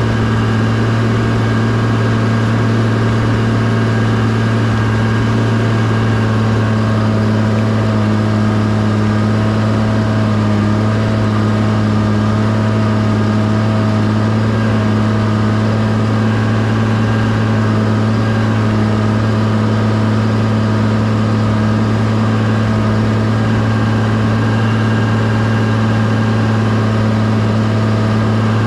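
Bulldozer's diesel engine running at a steady speed with an even low drone, the dozer at work moving dirt.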